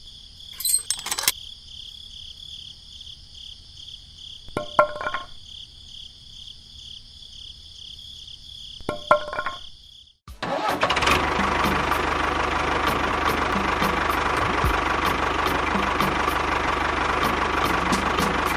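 A faint high whine with a few short chirps, then about ten seconds in a motor starts and runs steadily, engine-like, with a fast irregular ticking over it.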